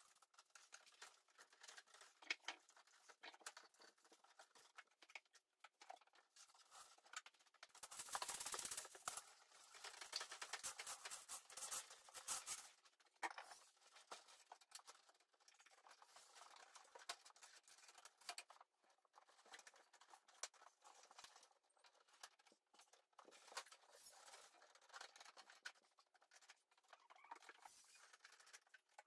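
Faint, irregular scraping, rubbing and clicking of half-inch oxygen-barrier radiant-heat tubing being stretched out and fed through holes drilled in wooden floor joists, with a louder stretch of rubbing about eight to twelve seconds in.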